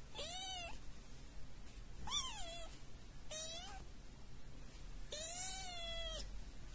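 Young kitten meowing four times in high-pitched mews, the last one the longest at about a second.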